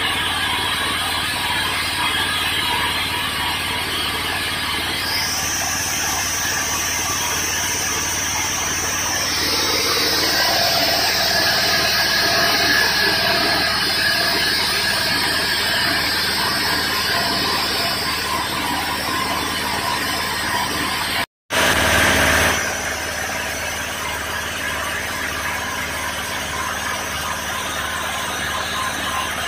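Motor-driven universal feed grinder running steadily, a dense mechanical din with a high whine that comes in about five seconds in and fades out later. The sound breaks off for a split second about two-thirds through, then carries on.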